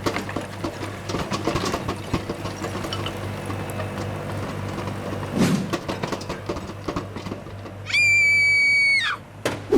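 Busy clattering background with a steady low hum and scattered knocks. About eight seconds in comes a loud, high, steady whistle-like tone lasting about a second.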